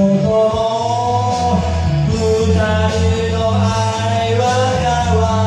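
Karaoke backing track of a rock song, with a voice singing long, slowly gliding held notes over a steady bass and beat.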